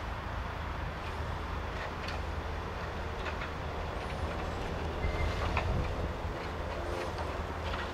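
Tipper lorry's diesel engine running steadily to power its hydraulic loader crane, as the grab drops rubbish into the lorry's body with scattered clatters and knocks.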